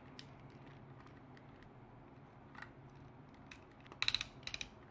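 Faint, scattered clicks of a large Transformers action figure's joints being flexed by hand. About four seconds in comes a quick run of clicks as a limb is swung through its range.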